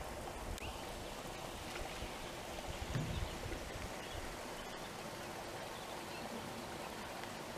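Steady rush of flowing water, with a brief low bump about three seconds in.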